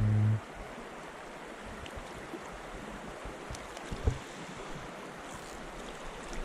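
Fast, shallow water of a spring creek rushing steadily past, with a brief knock about four seconds in.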